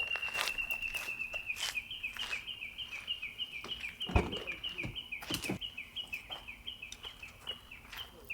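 A high, chirping animal call that keeps going in quick repeated notes, several a second, slowly falling in pitch, with scattered clicks and a single thump about four seconds in.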